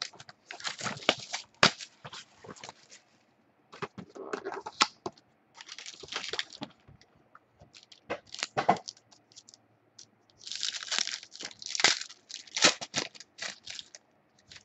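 Trading-card box packaging being torn open and crumpled by hand: several bursts of tearing and crinkling, mixed with sharp clicks and rustles of cardboard and cards being handled.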